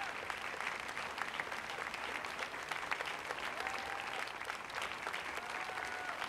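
Audience applauding, a dense steady clapping, with two short high calls rising over it.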